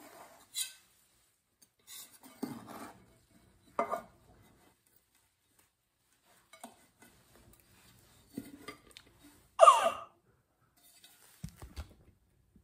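A knife scraping and clinking against the inside of a round metal cake pan in short, scattered strokes as the baked cake is loosened from it. About ten seconds in comes a brief, loud wordless cry that falls in pitch.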